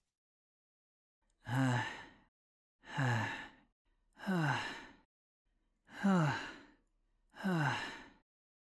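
A voice actor panting out five breathless, voiced 'haa' exhalations, each falling in pitch, about one every one and a half seconds: the sound of someone worn out and out of breath.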